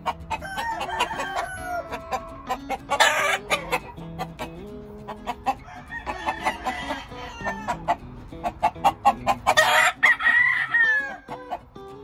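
Game rooster crowing several times, the loudest crows about three seconds in and about ten seconds in, over background music with a steady beat.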